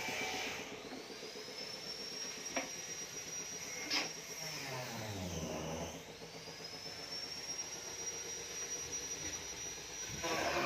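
A power tool's high-pitched whine that spins up, runs steadily for a few seconds and winds down, twice, over a low steady hum. There are two sharp clicks, about two and a half and four seconds in.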